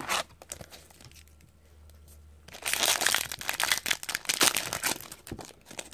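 An Upper Deck hockey card pack wrapper being torn open and crinkled in the hands. The dense crackle starts about two and a half seconds in, after a few faint rustles of card handling.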